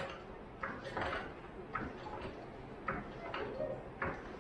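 Hydraulic floor jack being pumped by its long handle, four metallic clacks about a second apart, one with each stroke.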